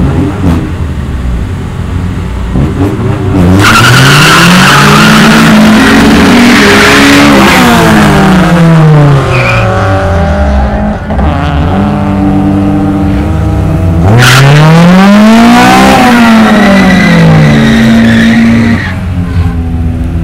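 Honda Civic four-cylinder engines launching hard down a drag strip, with tire squeal at each launch. One run starts about three and a half seconds in and another about fourteen seconds in. Each time the engine note climbs in pitch and then falls away as the car pulls off.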